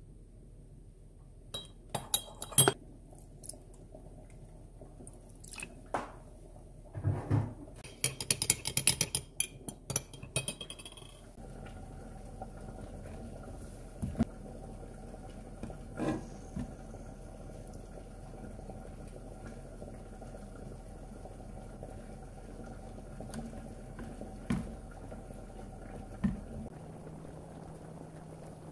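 A metal spoon clinking against a ceramic mug as a sauce is mixed, with a quick run of rapid clinks from about eight seconds in. From about twelve seconds in there is a steady low hum with a few light knocks of cookware.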